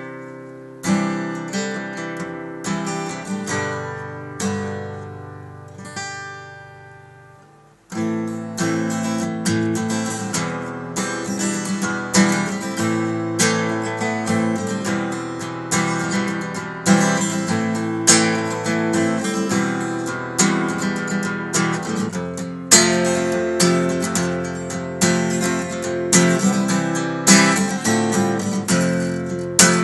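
Takamine ETN20C acoustic guitar played solo. Chords and picked notes ring out and die away until the playing almost stops about eight seconds in, then it resumes with steady rhythmic strumming and picking.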